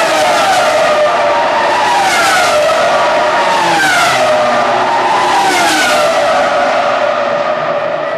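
Formula One cars with 3.0-litre V10 engines passing at race speed. Their high engine notes drop in pitch as each car goes by, several times a couple of seconds apart, over a steady engine noise from the rest of the field. The sound starts to fade near the end.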